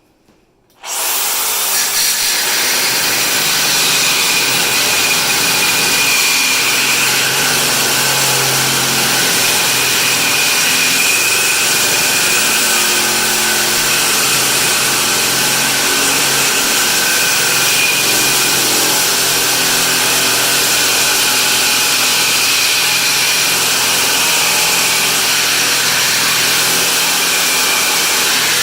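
Reciprocating saw with a 6-inch MK Morse CTR carbide-tipped blade cutting through mild steel tubing. It starts about a second in and runs steadily.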